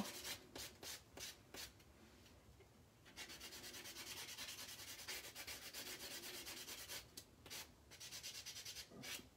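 Faint rubbing of an abrasive nail tool across a fingernail in short back-and-forth strokes, with a brief pause and a steadier stretch of rubbing in the middle.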